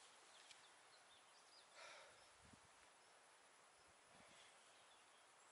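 Near silence: faint rural outdoor ambience.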